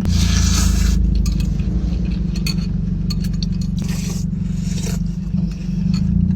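Eating utensils scraping and clicking against a bowl or food container in a mukbang, with two longer scrapes, one at the start and one about four seconds in. A steady low rumble runs underneath.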